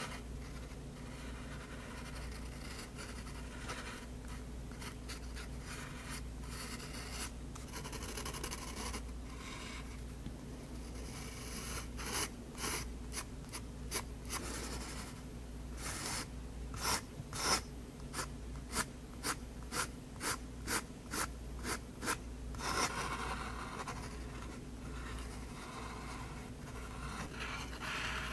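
Faber-Castell Hexo fountain pen with an extra-fine nib scratching on sketchbook paper. Longer drawing strokes give way in the middle to a run of short, quick hatching strokes, about two a second, then longer strokes again.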